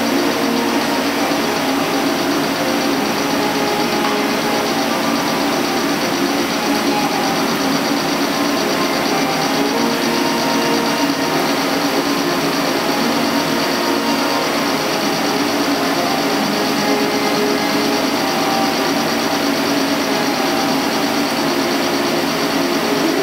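CNC lathe running steadily as its cutting tool turns a large metal ring, a continuous machine noise with no breaks.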